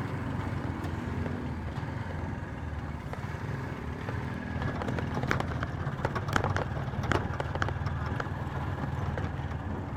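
Engine and road noise of a moving vehicle heard from inside it: a steady low rumble with scattered sharp rattles and clicks, thickest in the middle.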